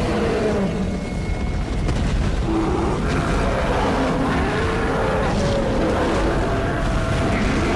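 Dinosaur stampede sound effect: a steady, loud low rumble of massed pounding, with wavering bellowing calls over it.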